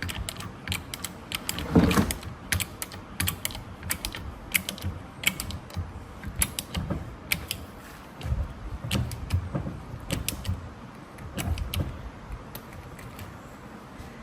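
Hand-pumped hydraulic copper pipe crimping tool being pumped to crimp a fitting: a run of irregular clicks, creaks and light knocks from the pump handle and jaws as the jaws close on the fitting.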